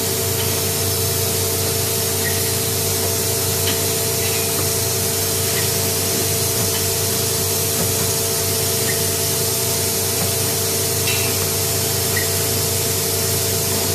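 Hydraulic pump unit running steadily under load while the press works at high pressure: an even, loud hiss with a steady hum underneath.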